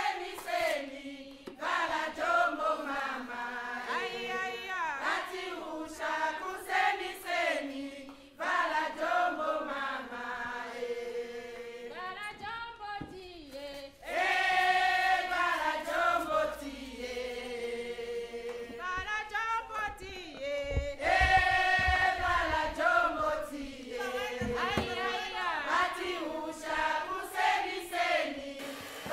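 A choir singing as background music, voices holding and sliding between long notes, with brief breaks between phrases.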